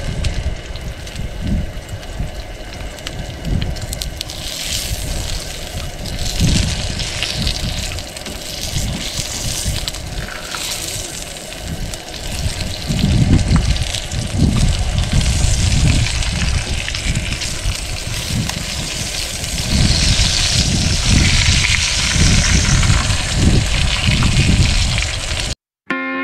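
Bacon sizzling on a griddle over a Coleman propane camp stove, a steady hiss, with wind gusting irregularly on the microphone.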